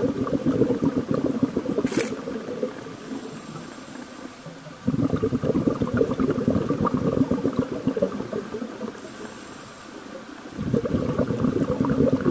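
Exhaled air bubbles from a scuba diver's regulator bubbling and crackling past an underwater camera. The bursts come every five to six seconds, with quieter pauses between, in step with the diver's breathing.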